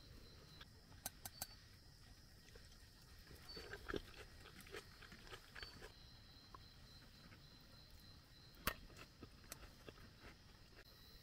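Faint eating sounds: a plastic spatula clicking and scraping against an aluminium camping pot, with quiet chewing, and one sharper knock about three-quarters of the way through.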